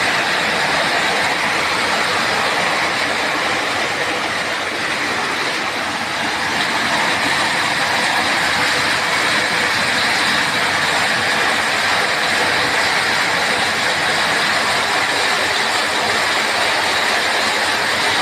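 Heavy rain pouring down in a loud, steady, even hiss.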